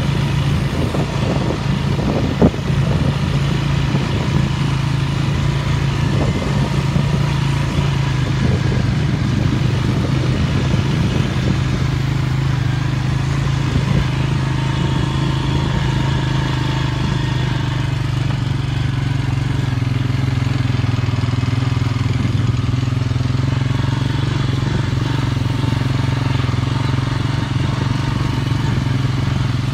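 An engine running steadily at an even speed, loud and close, with its low hum dropping slightly in pitch partway through and a brief knock about two and a half seconds in.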